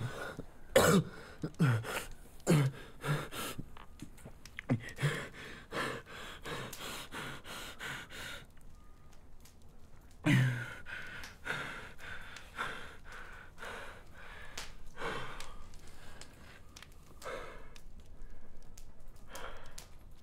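A person coughing in repeated short fits, with gasping breaths between them; the coughs come thick and fast for the first few seconds, then thin out, with one more strong cough about ten seconds in.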